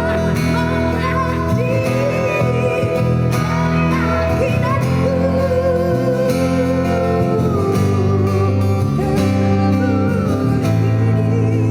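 Live cover song: a singer holding long notes with vibrato over guitar accompaniment.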